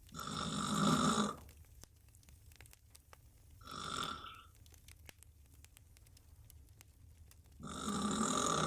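A woman snoring loudly on her back with her mouth wide open: three snores about four seconds apart, the middle one shorter and quieter.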